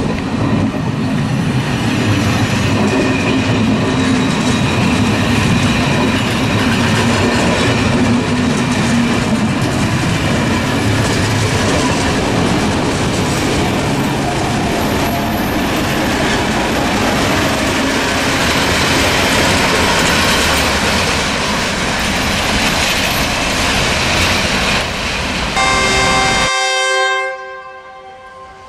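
Passenger train running past close by: a loud, steady rumble of wheels on rails. Near the end a train horn sounds for about two seconds, and the running noise cuts off suddenly.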